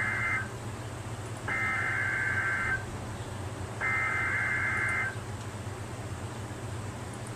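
NOAA Weather Radio Emergency Alert System SAME header: screechy two-tone digital data bursts, the tail of one and then two more, each just over a second long with about a second between them. The header encodes the tornado warning that follows. Steady radio hiss after the last burst.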